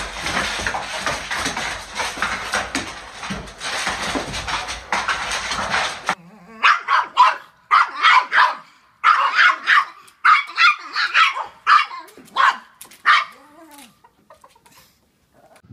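A dense clatter of clicks and taps for about six seconds, typical of dogs' claws scrabbling on a hardwood floor as they play-fight. It cuts off suddenly and is followed by a small dog barking in a rapid string of about a dozen short, sharp barks.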